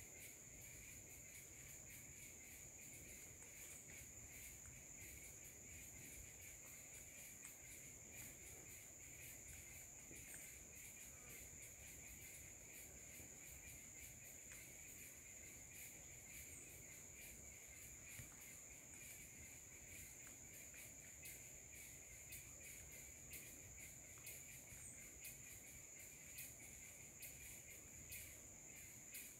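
Faint steady insect chorus in the forest, with a continuous high-pitched trill and a weaker lower one under it. Faint scattered ticks come more often near the end.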